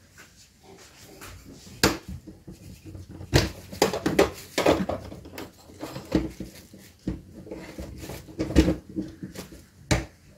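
A series of sharp clicks and knocks, about eight, spread irregularly, as a reassembled voltage stabilizer is handled, plugged in and switched on for a test.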